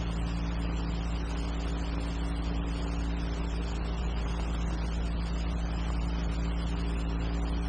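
Steady low hum with a background hiss, the noise floor of an old film soundtrack, unchanged throughout.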